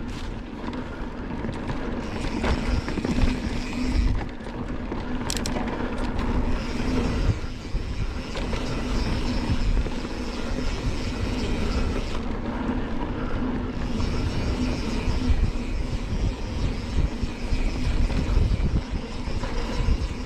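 Ride noise from a mountain bike at speed on a dry, dusty dirt trail: wind buffeting the camera microphone over tyres rolling and the bike rattling, a continuous uneven rush.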